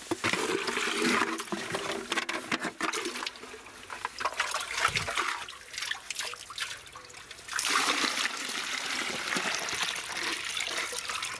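Water pouring and splashing as a container is filled. It slackens for a few seconds in the middle, then runs strongly again.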